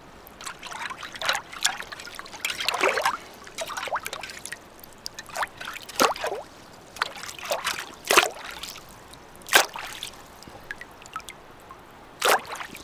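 Shallow water splashing and dribbling in short, irregular bursts, a few of them louder, as a tangle of rusty fence wire is worked about and lifted in it.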